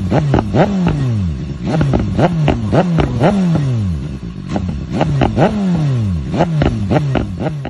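2018 BMW S1000RR's inline-four engine through an SC Project exhaust, free-revved in quick repeated throttle blips. Each rev drops back in pitch with pops and crackles on the overrun.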